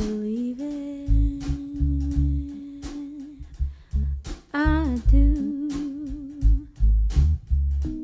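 A woman singing slow, long-held notes with vibrato, backed by a live jazz band with deep bass notes.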